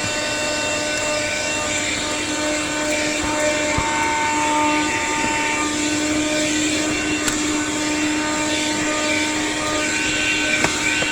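Cheap portable vacuum cleaner running steadily, its motor giving a constant whining hum over a rushing hiss as it sucks crumbs from car carpet, with a few faint clicks.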